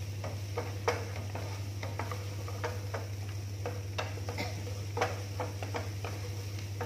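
Wooden spatula stirring and scraping in a nonstick frying pan, giving irregular clicks and knocks over a light sizzle of garlic and chilies frying in oil. A steady low hum runs underneath.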